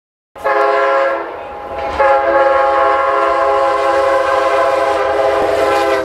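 Multi-chime air horn of an MBTA commuter train's EMD F40PH-2C diesel locomotive, sounding a chord of several steady tones: a short blast, then a second, long blast starting about a second later and held for about four seconds before cutting off.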